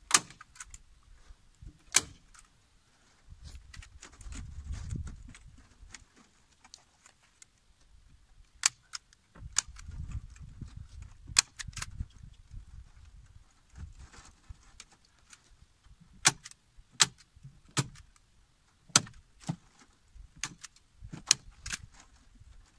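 Arrow T50 hand staple gun firing staples through chicken wire into wooden studs: sharp snaps, spread out at first and then several in quick succession near the end. Between shots the wire mesh rattles and there is a low rumble.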